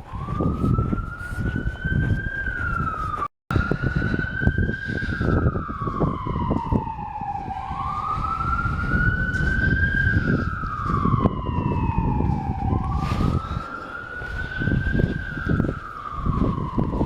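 Emergency vehicle siren in a slow wail, its pitch rising and falling about every five seconds, over steady low rumbling noise. The sound cuts out completely for a moment about three seconds in.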